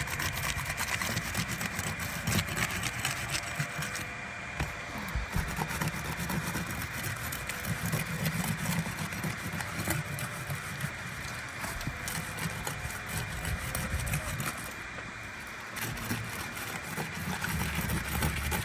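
Asphalt roof shingle tabs being pried up, their sealant tar strip breaking loose with irregular clicking and crackling, over a low steady rumble and a faint steady high tone.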